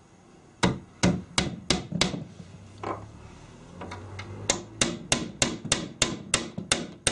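A small hammer tapping pins into the wooden beading of a sash window: quick, even taps at about three a second in two runs, with a pause of about two seconds between them.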